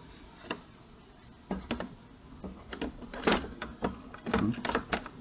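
Plastic cover panel on the underside of an Epson L120 inkjet printer being pushed and snapped back into place: a string of irregular plastic knocks, clicks and scrapes, busier in the second half.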